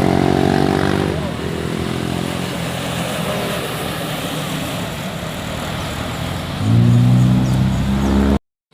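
Heavy vehicles passing with engine and road noise. A steady low tone dies away in the first second. About seven seconds in comes a loud, steady low horn blast, which cuts off abruptly near the end.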